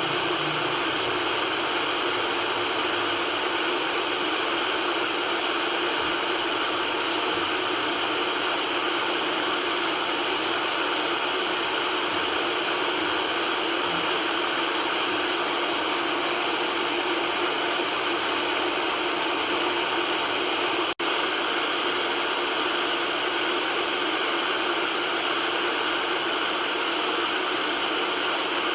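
Steady white noise: an even hiss with little low end, broken once by a momentary dropout about 21 seconds in.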